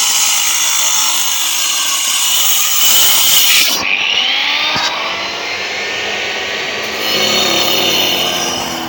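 Power saw cutting stone slabs, a continuous loud grinding whine; its pitch shifts about four seconds in.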